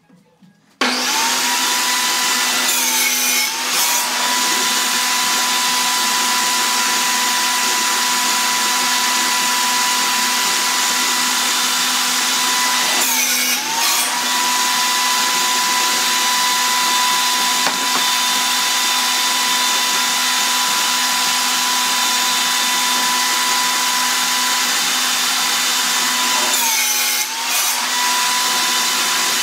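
Table saw switching on about a second in and running with a steady whine. Three times the whine dips briefly as the blade takes load cutting through plywood.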